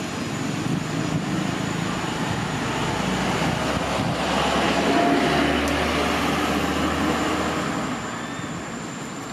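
Engine noise of a passing vehicle, a broad rushing rumble with a low hum that swells to a peak about five seconds in and then fades away.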